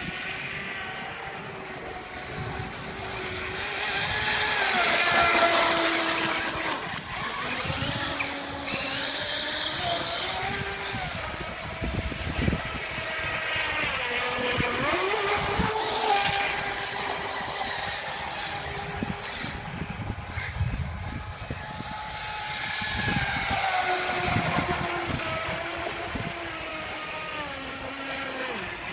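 Brushless electric motors of RC catamaran speedboats whining at speed, the pitch dipping and rising with throttle and turns. The whine grows louder as the boats pass close, about 5, 16 and 24 seconds in.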